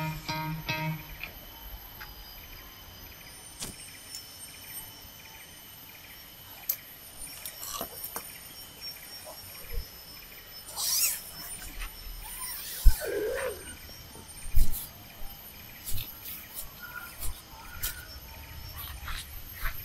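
Tropical forest ambience: insects drone on steady high tones, and a pulsed call repeats about twice a second through the first half. Scattered sharp clicks and knocks and a brief sliding animal call come around the middle.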